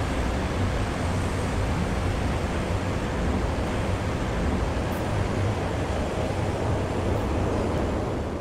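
TRA DRC1000 diesel railcar running past, a steady rumble of engine and wheels that begins to fade at the very end.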